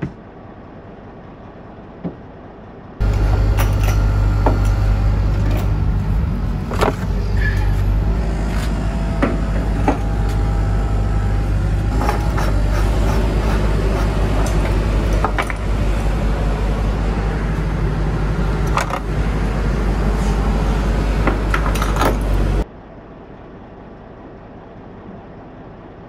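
Diesel truck engine idling steadily, with scattered clicks and scrapes of handling over it. It starts suddenly about three seconds in and cuts off abruptly near the end, leaving faint cab room tone.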